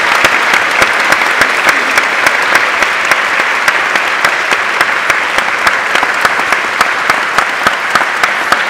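Large audience applauding steadily, with individual sharp claps standing out from the dense wash of clapping.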